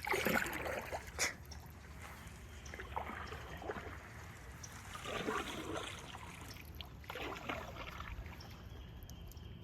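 Canoe paddle strokes in calm water: soft swishes every couple of seconds with water trickling off the paddle, and a light knock about a second in.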